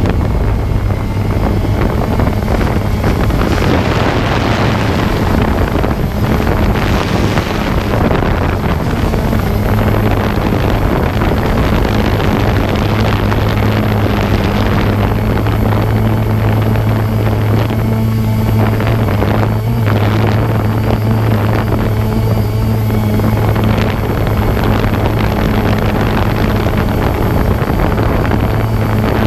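Drone's propellers whirring steadily in flight: a constant low hum with a higher tone an octave above, over a rushing noise of air that swells and eases now and then.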